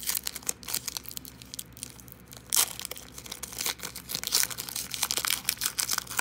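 Plastic-foil wrapper of a trading-card pack crinkling and tearing as the pack is opened, a dense run of irregular crackles with a louder rip about two and a half seconds in.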